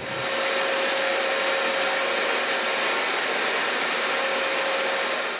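Paint spray gun spraying a varnish-and-white-paint mix: a steady hiss of air and atomised finish with a faint steady whine under it, which stops near the end.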